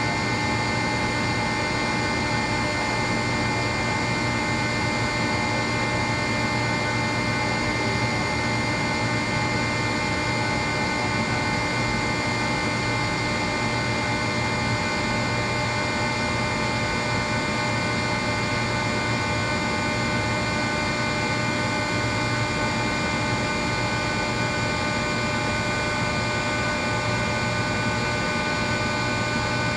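Rotary screw air compressor running steadily: a constant drone with several fixed whining tones above it.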